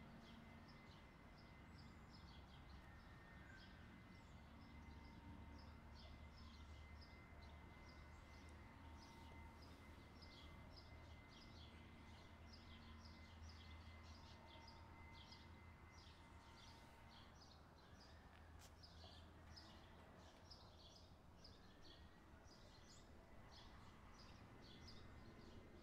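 Faint bird chirping: a continuous run of short, high chirps, several a second, over a low steady hum of outdoor background noise.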